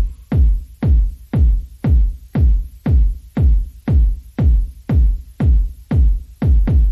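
Electronic background music with a steady, deep kick-drum beat, about two beats a second, and lighter percussion between the beats.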